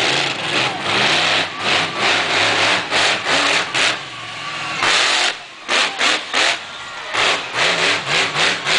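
Monster truck engine being revved hard: a sustained rev for the first few seconds, then quick repeated throttle blips, about two a second.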